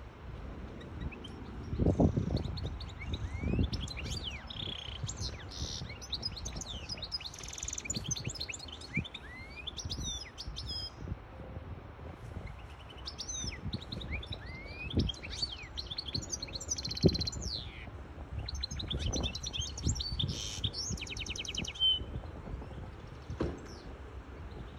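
Goldfinch hybrid singing: two long bouts of fast twittering song with rising and falling whistled notes and buzzy trills, broken by a short pause about halfway through. A few low thumps sound underneath.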